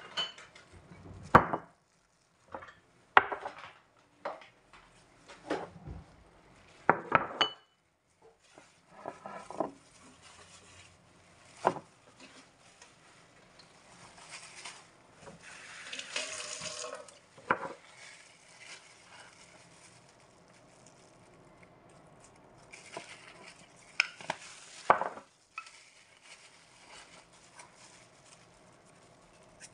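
Kitchen handling noises: scattered sharp knocks and clinks of bowls and utensils on the counter, with a longer rustle about halfway through.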